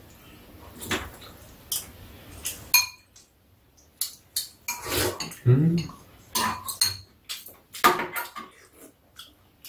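Metal spoons and chopsticks clinking and scraping against ceramic bowls in a string of sharp clinks, one ringing clearly about three seconds in. A short voice-like hum comes about halfway through.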